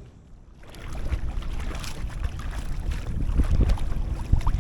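Wind buffeting an action camera's microphone: a low, gusting rumble that swells up about half a second in and stays strong.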